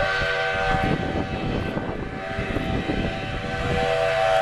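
Steam locomotive whistle blowing long blasts, several notes sounding together as a chord, over a rough low rumble. The whistle cuts off sharply near the end.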